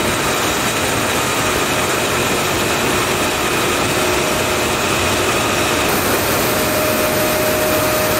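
Steady, even machinery noise of an aluminium can production line running, with a few faint steady tones over it.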